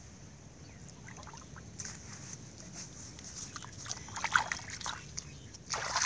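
A hand splashing and sloshing shallow muddy water in short, irregular bursts, loudest about four seconds in and again near the end.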